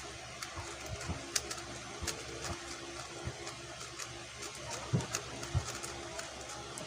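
QiYi X-Man Tornado V2 3x3 speedcube being turned, its plastic layers giving scattered sharp clicks over a steady faint hum.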